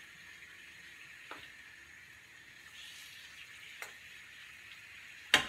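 Pork ribs frying in a pan, a faint steady sizzle, with a couple of light knocks of a wooden spoon as they are stirred. A loud clatter comes just before the end.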